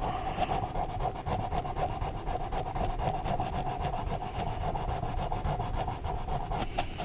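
Colored pencil shading back and forth on a coloring book page: a fast, even scratching of many short strokes that stops near the end.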